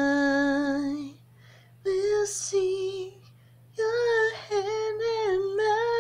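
A woman singing unaccompanied: three phrases with short pauses between them. The first is a long low held note, and the later ones are higher and waver in pitch. A faint steady low hum sits underneath.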